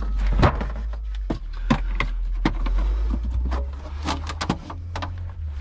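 Irregular clicks and knocks of hand tools and metal car parts being worked on, over a steady low rumble.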